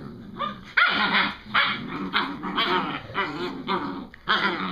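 Eight-week-old puppies play-fighting, growling and giving short barks and yips in quick succession, roughly two a second, with one higher rising cry about a second in.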